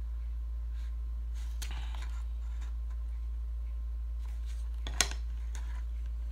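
Faint rustles and small clicks of card and a roll of double-sided tape being handled as tape is pressed onto a cardstock box flap, with one sharp click about five seconds in. A steady low electrical hum runs underneath.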